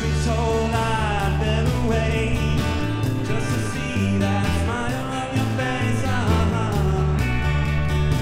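Live rock band playing with electric and acoustic guitars, bass guitar and drum kit, and a man singing the lead vocal.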